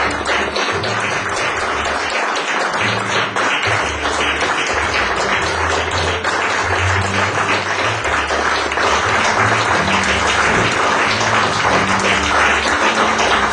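Audience applause under music with a walking bass line.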